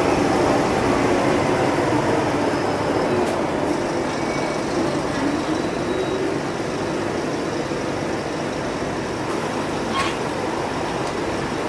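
Scania K320UA city bus heard from inside the passenger cabin while driving: a steady engine and drivetrain drone with road noise, easing a little over the first few seconds and then holding level. A single sharp click comes about ten seconds in.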